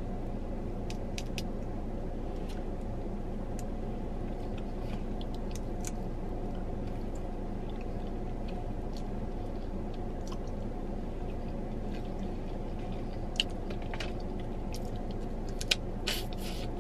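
Boiled peanuts being shelled and eaten: scattered small cracks and squishes of soft wet shells and chewing, a couple of sharper clicks near the end, over a steady hum inside a car cabin.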